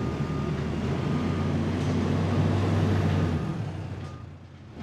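Large Toyota forklift's engine running under load while its reversing alarm beeps about once a second; the engine eases off about three and a half seconds in.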